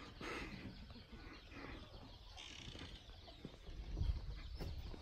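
Faint outdoor background with birds calling, scattered light knocks and a brief low rumble near the end.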